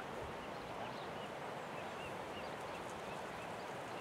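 Steady outdoor background hiss with faint, short high bird chirps scattered through it.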